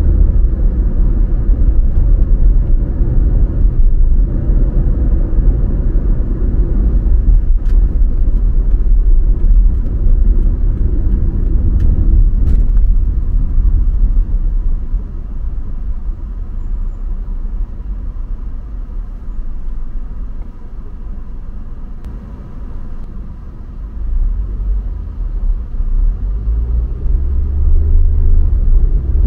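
Car driving on city roads: a steady low rumble of road and engine noise that eases off in the middle and builds up again near the end.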